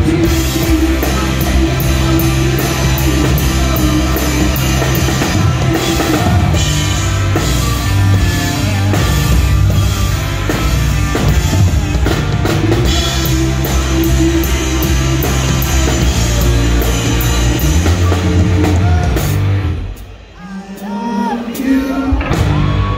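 Live rock band playing loud: electric guitars, bass and a drum kit with cymbals. About twenty seconds in, the full band drops out suddenly and a much sparser passage follows.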